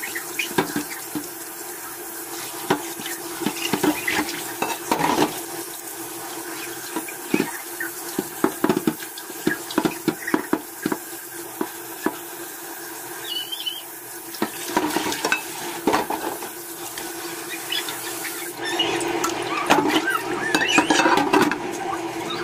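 Tap water running into a plastic tray in a stainless-steel sink while hands rub and turn a slab of side pork under it, with irregular wet slaps and splashes.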